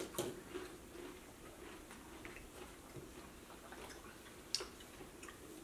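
Small drink cups being handled on a table: scattered faint clicks and ticks, with one sharper click about four and a half seconds in.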